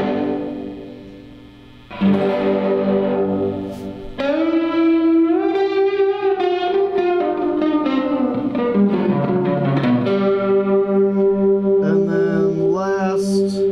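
Electric guitar played through an Electro-Harmonix Grand Canyon delay, its expression parameter stepped by an 8-Step Program sequencer. Strummed chords ring out at the start and again about 2 and 4 seconds in; the pitch then glides up and back down over several seconds, and it settles into sustained notes that pulse in level.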